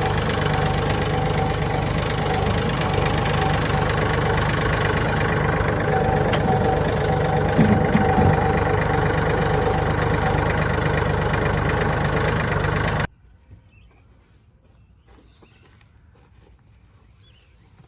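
A vehicle engine running steadily, which cuts off abruptly about 13 seconds in, leaving only faint sounds.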